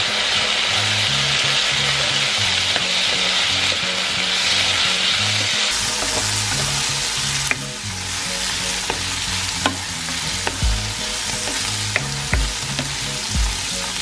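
Sliced vegetables and onion sizzling as they fry in a non-stick pan and are stirred with a spatula, with a few sharp clicks of the spatula against the pan in the second half.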